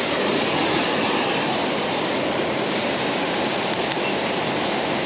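Steady, even rush of water falling over a waterfall.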